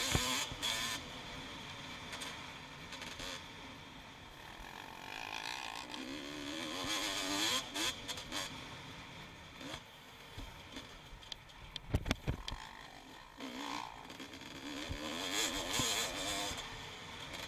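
Honda CR250 two-stroke motocross bike's engine revving up and down as it is ridden, its pitch rising and falling over and over under a steady rushing noise. A cluster of sharp knocks comes about twelve seconds in.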